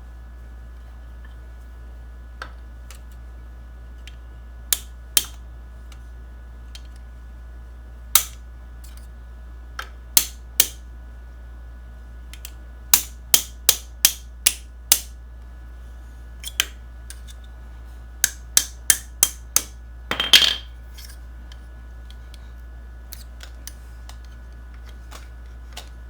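Sharp metallic taps and clicks in irregular runs of several strikes, about three a second at their quickest, as a hook-type seal puller is worked against the left main crankshaft oil seal of a Yamaha XS650 engine. A longer, louder metal clatter comes about three-quarters of the way through.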